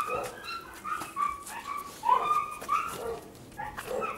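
Young Caucasian Shepherd dogs whining and yipping for attention in a rapid run of short, high calls, many of them falling in pitch.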